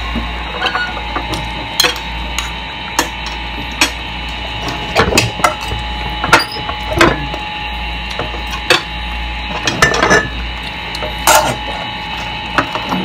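Irregular clicks and knocks of dishes and utensils being handled at a meal table, over a steady background hum.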